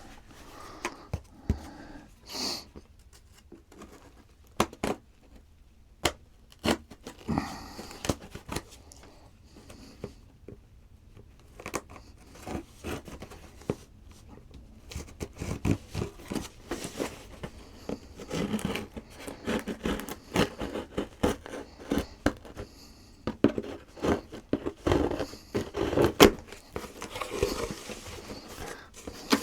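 A cardboard shipping box being opened by hand: tape cut and torn, and flaps and packing paper rustling and crinkling, with scattered sharp clicks and knocks that grow busier and louder about halfway through.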